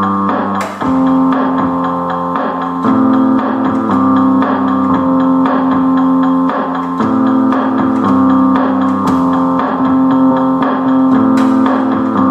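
Instrumental music with guitar and keyboard, sustained chords over a steady low note, played loud and without singing.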